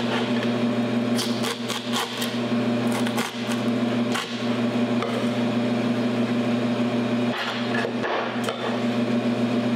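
Chef's knife slicing a fennel bulb on a wooden cutting board: irregular chops and taps of the blade against the board, over a steady low hum.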